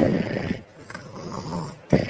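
Cartoon snoring sound effect. A sharp, loud snore comes at the start and again near the end, with a longer, quieter breath out between them, in a cycle of about two seconds.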